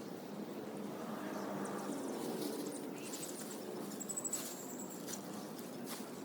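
Outdoor ambience: a steady low background murmur with a few faint clicks, and a short run of rapid high chirps a little past the middle.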